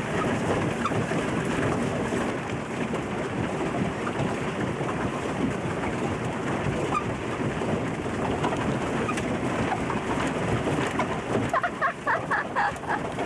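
Steady splashing and churning of water from a pedal boat's paddle wheel as the boat is pedalled across the water.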